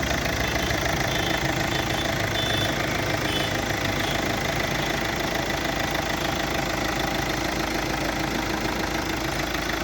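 Chevrolet Cruze engine idling steadily.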